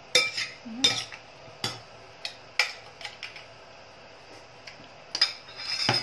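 Metal spoon clinking and scraping against a glass mixing bowl as a salad is tossed: several separate sharp clinks about a second apart, a quieter stretch, then a quicker cluster near the end.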